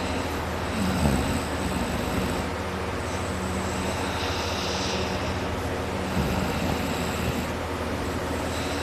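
A person snoring in deep sleep: two rough, low, rattling snores, about a second in and about six seconds in, each breath followed by a hissing exhale, over a steady low hum.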